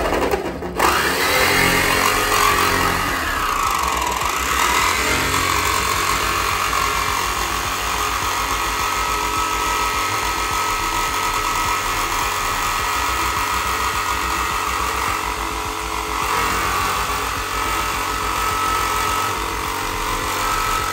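Jigsaw cutting through the sheet-metal roof of a Mazda B2200 pickup. The motor's pitch swings up and down in the first few seconds, then settles into a steady whine as the blade saws along the cut line.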